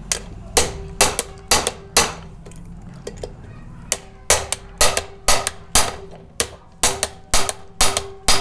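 Hammer strikes on a hand impact driver, driving home the crankcase bolts of a TVS XL Super moped engine: sharp metal blows at about three a second, with a pause of nearly two seconds near the start.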